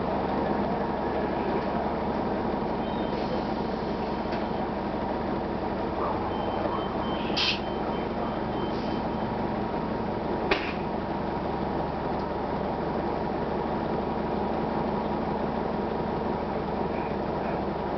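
Steady drone of a 1999 Gillig Phantom transit bus heard from inside, its Detroit Diesel Series 50 diesel engine and road noise running evenly. A brief burst of hiss comes about seven and a half seconds in, and a single sharp knock about ten and a half seconds in.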